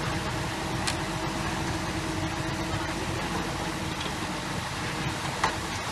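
Heavy construction machine's diesel engine running steadily, a constant hum with two sharp knocks, about a second in and near the end.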